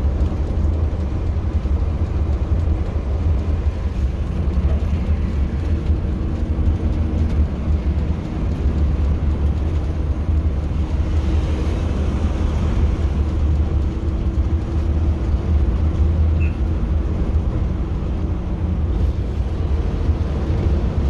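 Steady low drone of a coach bus's engine and tyre noise, heard from inside the cabin while cruising on a highway. A rush of hiss swells for a couple of seconds near the middle as a truck is passed alongside.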